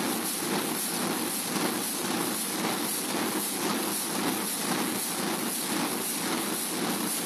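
1933 Burmeister & Wain diesel engine, the H.C. Ørsted power-station engine, running steadily with an even, repeating beat.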